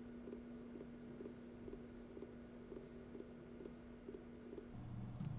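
Faint computer mouse clicks repeated at an even pace, about two a second, stopping a little before the end, over a low steady hum.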